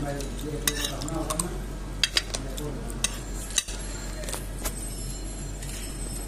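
Cutlery clinking and scraping against a plate while someone eats, in sharp separate clicks every second or so over steady restaurant background noise.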